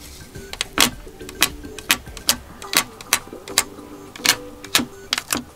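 Quiet background music, a soft melody, with a sharp click about every half second.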